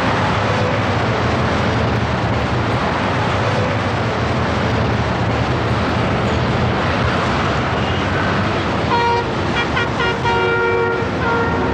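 Heavy city highway traffic running steadily, with engines and tyres blending into a continuous noise. From about nine seconds in, vehicle horns honk several times in short blasts.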